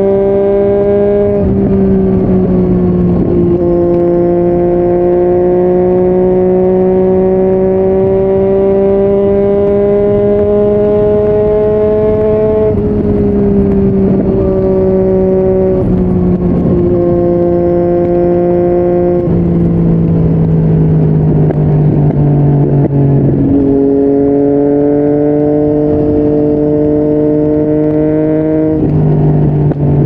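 Yamaha MT-09's inline three-cylinder engine breathing through a Yoshimura R55 slip-on exhaust, heard riding: a steady drone whose pitch climbs slowly under light throttle in each gear and shifts abruptly at each of several gear changes.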